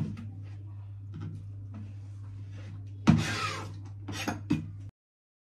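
Cleaver chopping leafy greens on a cutting board: sharp knocks of the blade and lighter taps, with a scraping sweep about three seconds in, over a low steady hum. The sound cuts off suddenly near the end.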